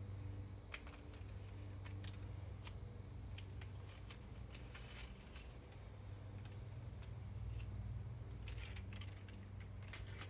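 Foil tape being handled and pressed around a muffler: scattered small crinkles and clicks, thicker in two clusters, over a steady low hum.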